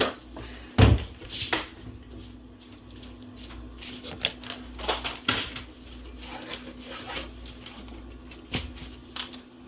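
Scattered clicks and knocks of dishes and cutlery being handled while food is served, with a dull thump about a second in. A faint steady hum runs underneath.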